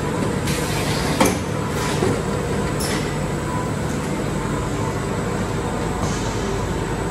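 Confectionery mixing machine for musk-stick paste running with a steady mechanical hum. A few short clicks come about one, two and three seconds in.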